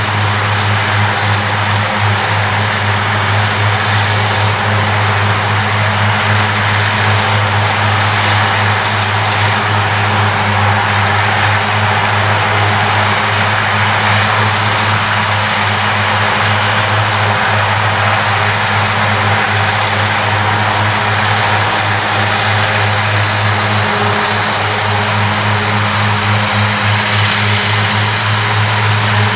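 Claas Cougar 1400 self-propelled mower running steadily under load as it mows grass: an even, low diesel engine hum with the dense whir of its mowing units over it.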